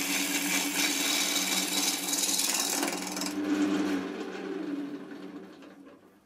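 Gouge cutting the outside of an ash blank spinning on a wood lathe: a steady hiss of shavings over the hum of the lathe motor. About three seconds in the cut stops, and the lathe's hum fades away as it winds down.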